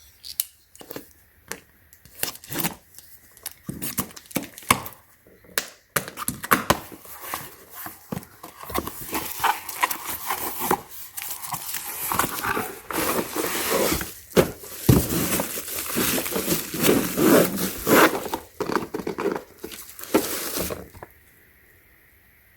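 Packaging being handled and torn open: scattered clicks and rustles at first, then a long stretch of steady crinkling and tearing that stops abruptly near the end.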